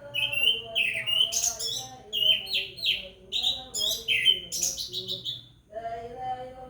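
Orange-headed thrush singing loudly in quick, varied, repeated phrases that stop about five and a half seconds in, over a man's melodic chanted recitation in the background.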